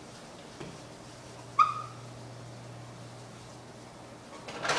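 Whiteboard eraser wiping across the board, giving one short high squeak about a second and a half in, over a low steady hum. A brief brushing rustle comes near the end.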